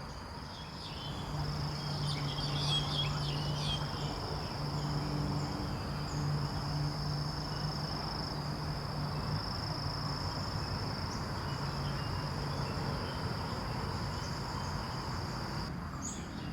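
Insects trilling steadily at a high pitch, with a low hum underneath that fades about halfway through.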